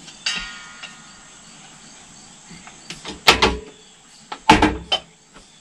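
Canning utensils being handled: a metal clink with brief ringing about a quarter second in, then a run of loud knocks and clunks between about three and five seconds. Crickets chirp steadily in the background.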